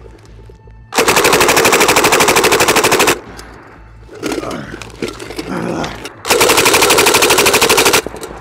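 A chopped-down RPD belt-fed light machine gun in 7.62×39 with a Dead Air Wolverine PBS-1 suppressor, firing two long bursts of rapid, evenly spaced shots. The first burst starts about a second in and lasts about two seconds; the second comes near the end and is a little shorter.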